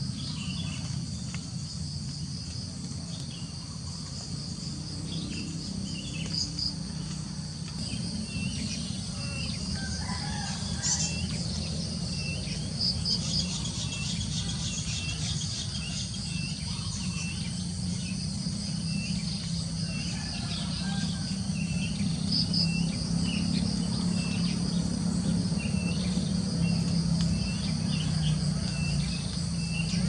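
Rural morning ambience: insects trill steadily while a small bird chirps over and over, about once a second. A rooster crows a couple of times in the background, over a low steady rumble.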